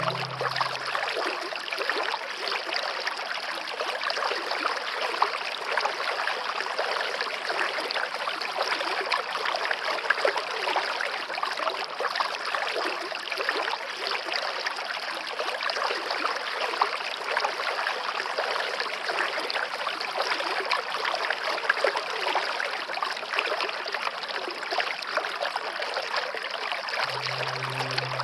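Waterfall: a steady, dense rush and splash of falling water. A low sustained music tone fades out about a second in and comes back near the end.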